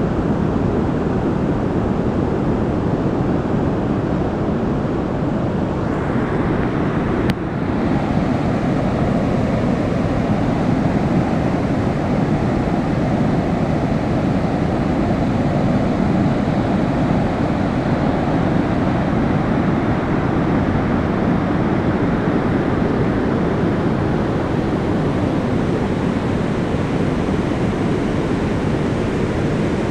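Loud, steady rush of floodwater pouring through a dam's open spillway gates and churning in the channel below.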